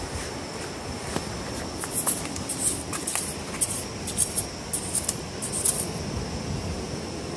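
Machete blade scraping and chopping into wet, sandy mud among mangrove roots, digging out buried clams. There is a quick run of a dozen or so short, gritty strokes from about two seconds in until near the end, over steady wind noise.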